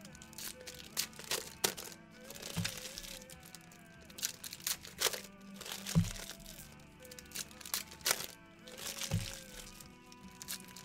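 Basketball card packs crinkling and tearing as their wrappers are ripped open, with sharp clicks of cards being handled and a dull thud about every three seconds. Soft background music plays underneath.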